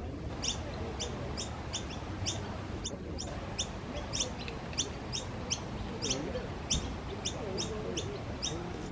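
Noisy miner calling a long, steady series of short, high notes, each falling in pitch, about two a second.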